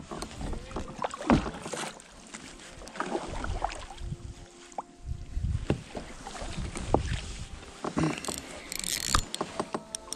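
Spinning reel and rod being worked while playing a fish from a kayak: irregular clicks and knocks of the reel and handling, with low wind rumble on the microphone and water moving against the hull.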